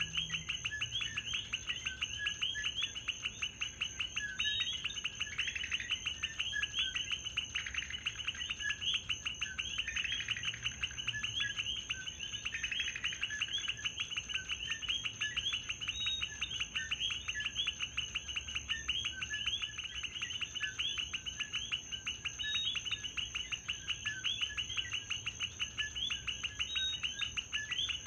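Chorus of common coquí frogs, many short overlapping chirping calls repeating rapidly, over a steady high-pitched whine.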